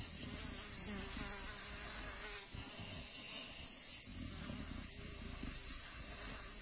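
An insect chirping in a steady, high, pulsing trill over a low rumbling background.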